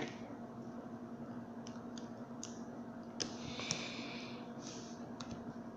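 Knife cutting into a battery pack's rubbery plastic wrapping: scattered light clicks, and a longer scratchy scrape about three seconds in. A faint steady hum underneath.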